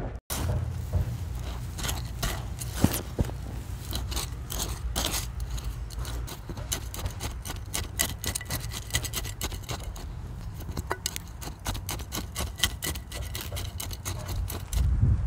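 Metal hand scoop scraping and stirring a gritty soil mix in a plastic tub, heard close up as a dense, irregular run of crunches, scrapes and clicks.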